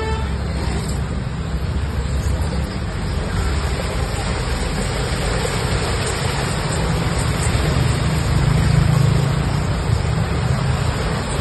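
Steady rush of vehicles driving through a flooded street, with wheels splashing through the water and a constant low rumble, heard from a moving rickshaw; a little louder about eight seconds in.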